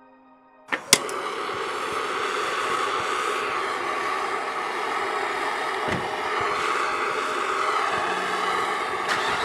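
Gas torch burning with a steady rushing roar that starts abruptly with a sharp crack about a second in.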